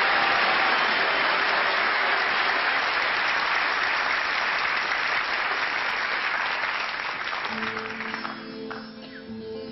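Concert audience applauding, the clapping dying away over the last couple of seconds as a guitar starts playing the opening notes of a song about seven and a half seconds in.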